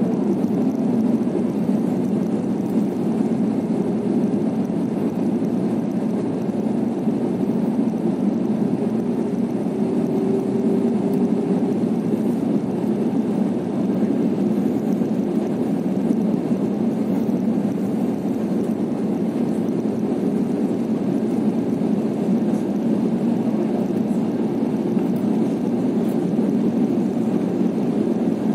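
Airliner cabin noise during descent on approach: the jet engines and the rush of air over the fuselage make a steady, deep, even rumble. A faint steady tone sits in it for a few seconds near the middle.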